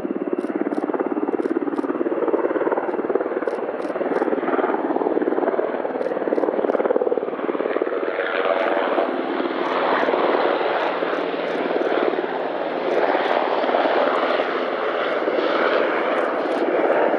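Sikorsky HH-60 Pave Hawk helicopter hovering, its rotor and twin turboshaft engines making a steady, loud rotor beat. The noise grows somewhat louder and brighter after about eight seconds as the helicopter comes closer.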